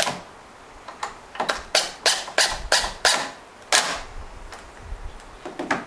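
20V cordless impact driver driving a wood screw into a plywood plate in short trigger bursts, a series of sharp clacks about three a second that thin out and fade after about four seconds as the screw seats.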